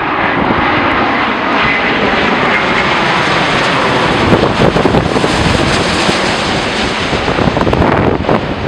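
Boeing 787-8 Dreamliner's Rolls-Royce Trent 1000 jet engines passing low overhead on landing approach: a loud, steady rush of engine noise, loudest about midway as the aircraft goes over. Wind buffets the microphone with low rumbles in the second half.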